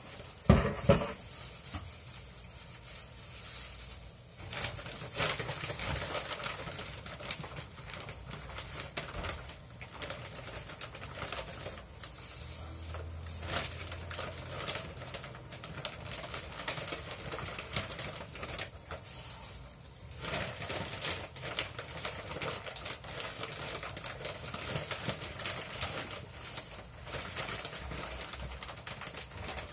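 Gloved hands pulling cooked chicken off the bone and handling a plastic bag: irregular rustling, crackling and light clicking. Two sharp knocks about half a second and a second in.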